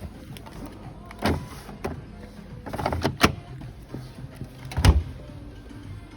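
Display washer and dishwasher doors or lids being handled: a few sharp knocks and thuds, one about a second and a half in, a cluster around three seconds and a loud one near five seconds, over a steady low hum.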